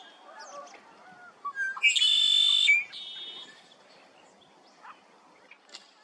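Male red-winged blackbird singing its konk-la-ree song: a couple of short rising notes, then a loud buzzy trill about two seconds in, lasting under a second. Faint chirps of other birds sound around it.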